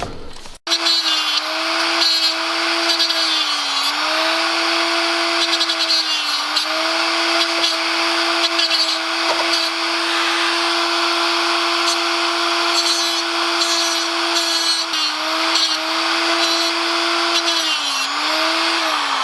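A high-speed power tool motor running steadily for about 19 seconds, shaving a part down so a harness bar bolt can reach its threads. Its pitch dips briefly several times, and it starts to wind down at the very end.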